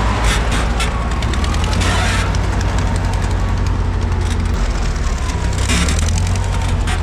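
A motor vehicle's engine running steadily with a deep, constant rumble, with faint clicks and rattles over it.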